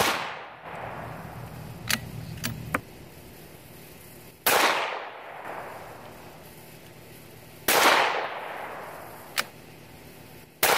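Scoped bolt-action rimfire rifle firing single shots about three seconds apart, each a sharp crack with a short echoing tail; four shots in all, the first and last at the very start and end. Between the first two shots there are a few light clicks of the bolt being worked.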